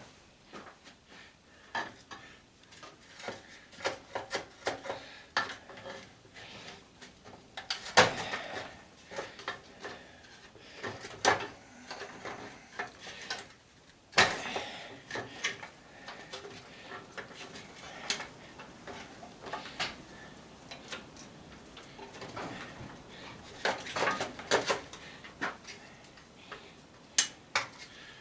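Irregular clicks, clinks and knocks of hand tools and metal parts while an old belt/disc sander is taken apart for scrap, with wire cutters in use. Two sharper knocks stand out, about eight and fourteen seconds in.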